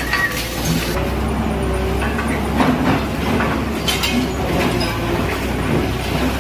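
A bulldozer's diesel engine running steadily, with scattered knocks and clatter.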